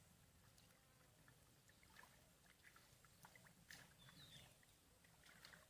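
Near silence: faint scattered clicks and small water sounds, with a brief faint high chirp about two-thirds of the way through.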